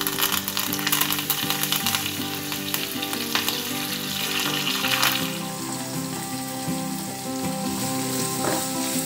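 Hot oil tempering in a nonstick kadhai: mustard seeds, cumin, green chillies and curry leaves crackle and sizzle while a wooden spatula stirs. After about five seconds the sharp crackle eases into a softer sizzle as chopped onion goes into the oil.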